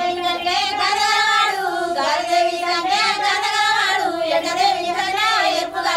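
A high voice singing long, wavering held notes with no clear words, part of a Telugu wedding song.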